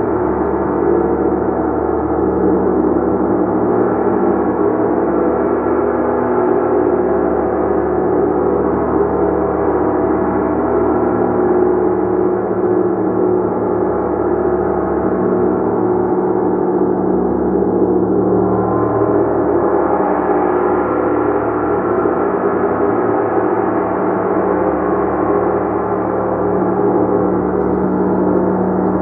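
A gong sounding continuously: a loud, steady wash of many overlapping sustained tones, with no single strike standing out.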